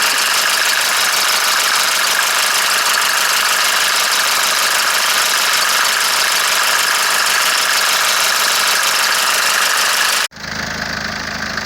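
Mercedes OM601 diesel engine idling cold, with the tapping of hydraulic lifters (lash adjusters) that the owner suspects are sticking, most likely in the first cylinder. The sound cuts off abruptly about ten seconds in.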